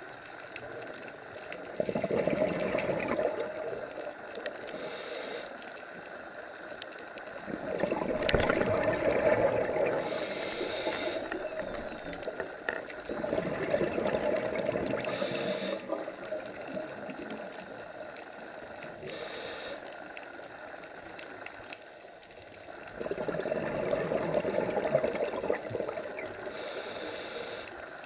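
Scuba diver breathing through a regulator underwater: four gushes of bubbling exhaled air several seconds apart, with short high hisses of inhaled air between them.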